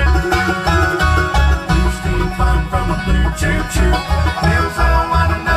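Bluegrass band playing an instrumental passage: banjo rolls, acoustic guitar, mandolin and fiddle over a steady low beat about twice a second.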